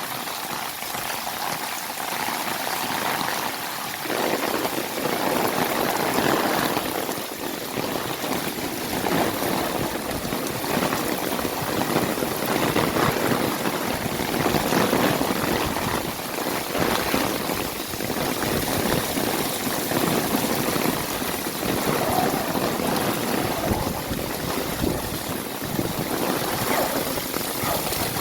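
Heavy rain falling in a steady, dense hiss, growing fuller and louder about four seconds in.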